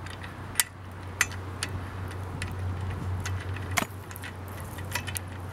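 Socket ratchet clicking in irregular single clicks as it turns a long bolt against a nut held by an adjustable wrench, drawing steel headset cups into a bicycle frame's head tube. A steady low hum runs underneath.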